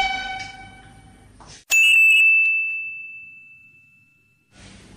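A single bright bell-like ding, struck once about two seconds in, ringing out on one clear tone for a couple of seconds before it cuts off abruptly. Before it, the tail of a held, pitched sound fades away.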